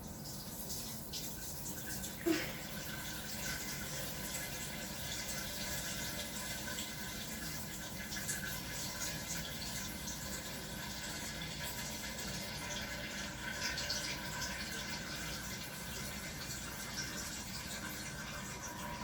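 A person urinating: a steady stream of liquid splashing without a break. A brief sharp sound stands out about two seconds in.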